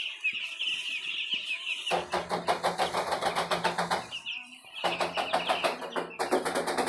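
A flock of chickens cheeping. About two seconds in, a loud, rapid, regular rattling with a steady low hum starts, stops briefly near the middle and starts again.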